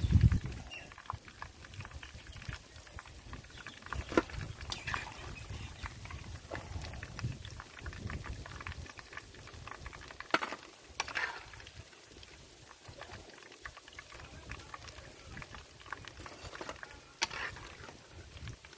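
Chicken kebabs sizzling in a pan of hot frying oil. A dull thump comes right at the start, then a few sharp metal clinks as a steel slotted skimmer scoops the pieces out and knocks against the pan and the steel tray.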